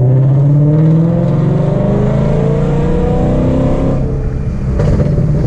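Ford Mustang GT's 5.0 V8 accelerating hard, its pitch rising steadily for about four seconds before the revs drop. The car is pulling away again after a hard stop while the new brake pads are being bedded in.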